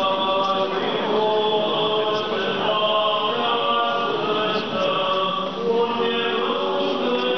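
Orthodox church chant sung by several voices in long, held notes, with the church's echo around them.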